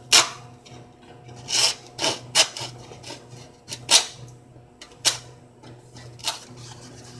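Hand saw scraping and cutting along a plywood edge in about seven short, uneven strokes, shaving off a protruding lip; the strokes near the start and about four seconds in are the loudest.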